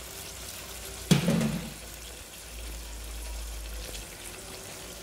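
Watery spiced sauce with boiled beef pieces simmering and sizzling in a non-stick wok, a steady hiss, with a single knock about a second in.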